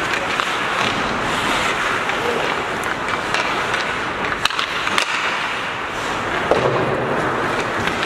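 Ice hockey play on the rink: skate blades scraping and carving across the ice, with several sharp clacks of sticks and puck, a few of them close together near the middle.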